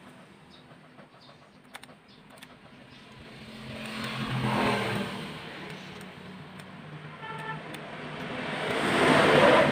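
Motor vehicles passing by twice, each swelling up and fading away. A short horn toot comes about seven seconds in, and a few light clicks sound near the start.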